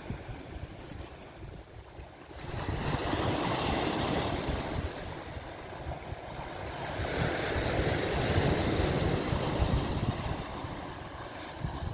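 Sea waves breaking and washing up the shore, with wind buffeting the microphone. A wave rushes in about two and a half seconds in, and another swells and draws back in the second half.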